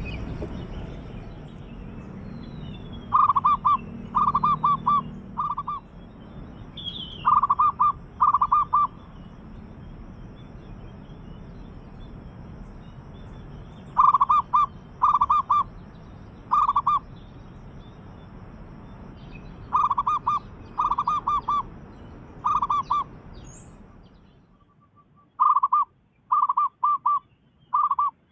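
Zebra dove (perkutut) cooing: repeated phrases of quick staccato coo notes, coming in groups every few seconds, with faint high chirps of small birds behind.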